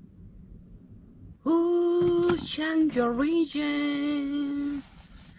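A woman singing a few drawn-out notes, starting about a second and a half in. The first and last notes are held steady and the middle one dips in pitch.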